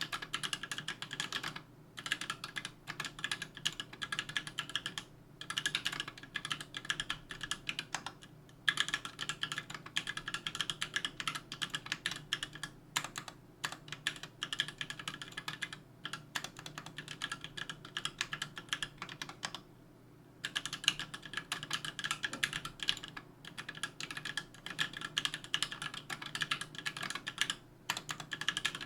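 Fast, continuous typing on a 60% aluminium mechanical keyboard with 78 g JWK H1 linear switches, an aluminium plate and GMK keycaps: a steady stream of key clacks with short pauses between bursts, and a lubed, clipped screw-in spacebar stabiliser.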